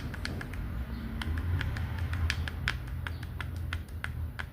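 Irregular light clicking and knocking, several a second, as the worn transmission from an Electrolux LEC14 washing machine is worked back and forth by hand. The clicks come from the play (folga) in the worn part, the looseness that rubs and knocks under the motor's back-and-forth pull and causes the machine's noise during agitation. A low steady hum runs underneath.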